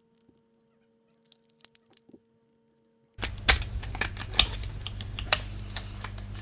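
Sharp clicks and taps of a PS5 controller's plastic parts being handled and pressed together during reassembly. The first three seconds are almost silent apart from a few faint clicks. About three seconds in, a low steady hum comes in, and four or five louder clicks follow about a second apart.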